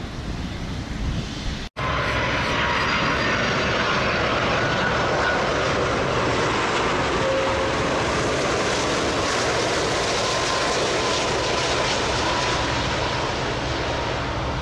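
Airbus A330 freighter's twin jet engines on final approach and flare: a loud, steady rush with a faint whine. It starts abruptly about two seconds in, after a quieter engine noise from a taxiing Boeing 777 freighter.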